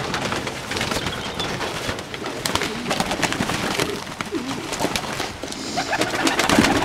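Fantail pigeons cooing in a flock, low bending coos over many short sharp flaps and clatters of wings.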